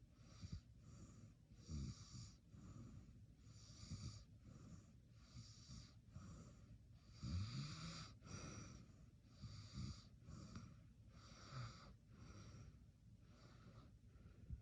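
A person snoring faintly, with snorts every couple of seconds; the strongest comes about halfway through. A faint higher pulsing, about three beats every two seconds, runs behind it.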